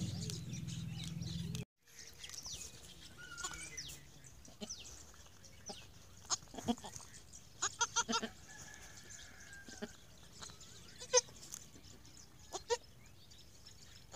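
Newborn goat kid bleating in short, separate calls, a quick run of them about eight seconds in and the loudest near the end. A steady low hum fills the first second or two and cuts off suddenly, and small birds chirp faintly behind.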